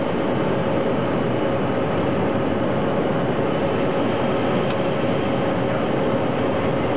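Single-engine light aircraft's piston engine and propeller droning steadily inside the cockpit on final approach, a loud, even drone with a constant hum running through it.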